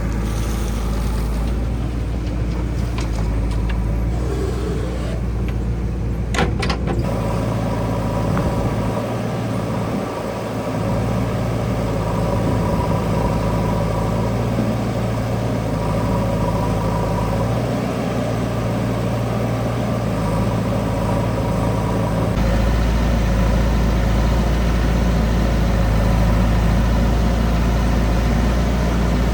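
A heavy diesel machine engine runs steadily, with a few sharp knocks about six seconds in. The low rumble grows louder about two-thirds of the way through.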